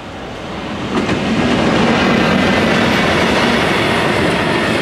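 A short freight train, a diesel locomotive hauling a tank wagon, passes close by over a level crossing, its wheels clattering on the rails. The sound swells about a second in, holds loud, and starts to fade near the end.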